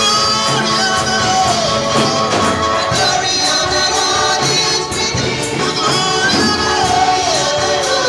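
Gospel music with a choir singing over a steady tambourine beat.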